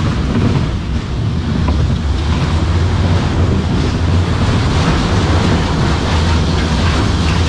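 Powered mine-train roller coaster car running along its track: a loud, steady, low rumble of wheels and drive heard from the rider's seat.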